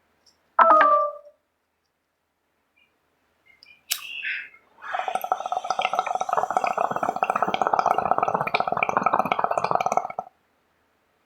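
Bong water bubbling steadily for about five seconds as smoke is drawn through it, then stopping abruptly. A lighter clicks just before it. There is a brief, loud pitched sound about half a second in.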